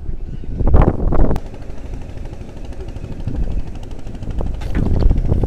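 Strong wind buffeting the microphone: a low, noisy rumble that swells in gusts about a second in and again near the end.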